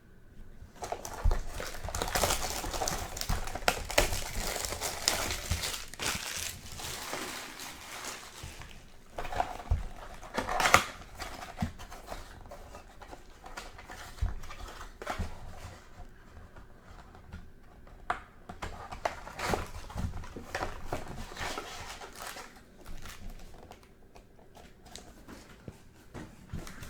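Plastic shrink wrap on a trading-card box crinkling and tearing as it is pulled off, with a few sharp crackles about ten seconds in, followed by intermittent rustling as the box is opened and the foil card packs are handled.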